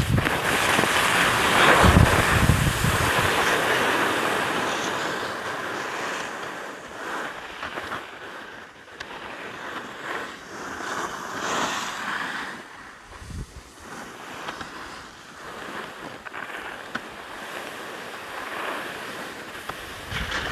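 Wind rushing over the microphone and skis sliding and scraping on packed, groomed snow on a downhill run. It is loudest, with a low rumble, for the first few seconds, then quieter with scattered rushes.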